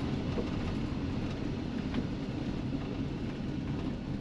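Vehicle road noise heard from inside a moving vehicle: a steady low rumble with light clicks and rattles.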